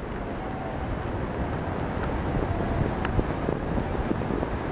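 Steady rush of wind buffeting the microphone during paraglider flight, with one faint click about three seconds in.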